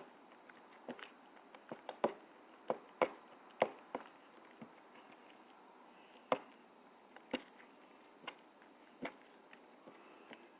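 Slime with lotion being kneaded and stretched by hand, giving irregular sticky pops and clicks, some in quick clusters.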